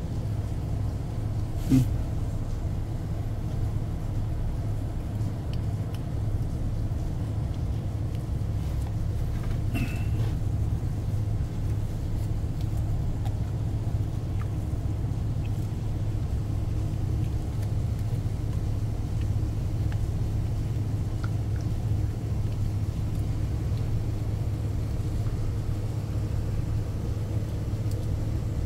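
A ship's machinery running with a steady low hum. There is a short knock about two seconds in.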